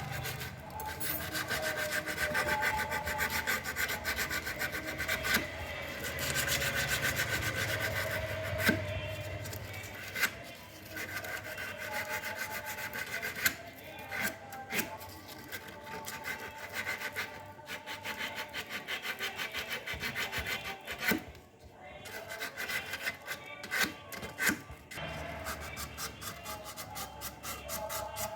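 Emery cloth rubbed back and forth on a copper refrigerator pipe, a rough, rapid rubbing in long stretches with a few sharp clicks, cleaning the tube before it is brazed.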